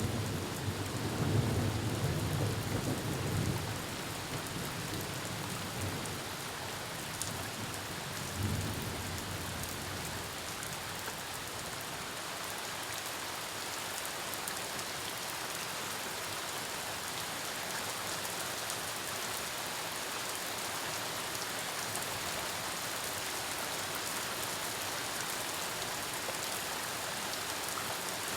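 Steady heavy rain falling, with a rumble of thunder dying away over the first few seconds and a short further rumble about eight seconds in; after that only the even hiss of rain.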